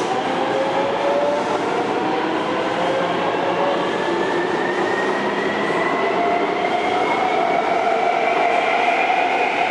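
Taipei Metro C321 train's traction inverter (VVVF) whine, several tones climbing steadily in pitch as the train picks up speed, over steady running noise.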